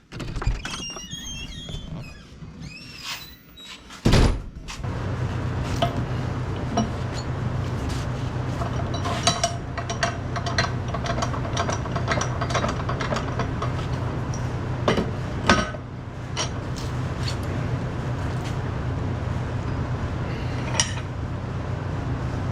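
A squeaking slide and creak with clicks, then a heavy thump about four seconds in. After it a steady motor hum starts and runs on, with scattered metallic clicks and clinks over it.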